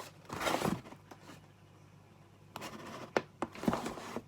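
A parcel being unpacked: a short rustle of packaging being torn or handled about half a second in, then a few sharp clicks and knocks in the last second and a half.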